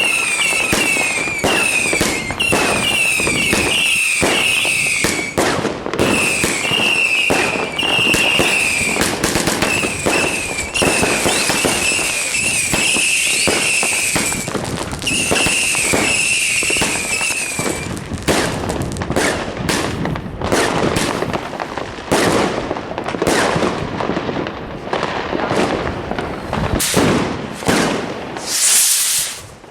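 Fireworks going off in rapid succession: dense bangs and crackling with many short, repeated whistles over the first half or so. Then it thins out to separate bangs, with a brief hiss near the end.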